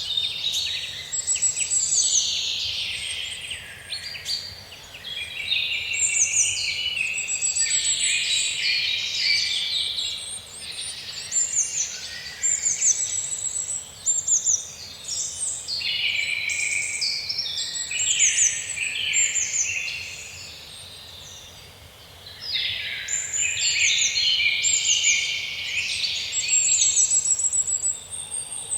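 Many small birds chirping and trilling over one another in long bursts, with brief lulls about four seconds in and again around twenty seconds in.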